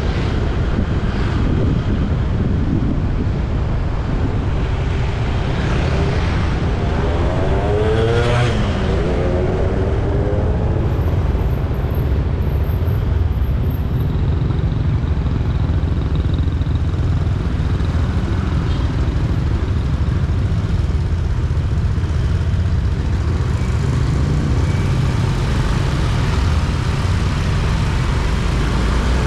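Road traffic on a highway: a steady low rumble of engine and road noise from moving vehicles. About eight seconds in, another vehicle passes close by, its engine note sweeping down in pitch.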